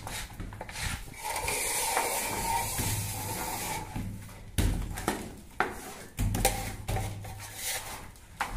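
Wet gypsum plaster being pressed and smeared by hand into a gap along a straightedge on a concrete beam: a stretch of rubbing and scraping, then several sharp knocks.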